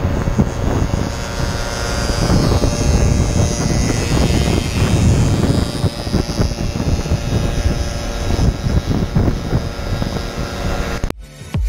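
Old two-stroke moped engine running at road speed, heard under heavy wind buffeting on the microphone.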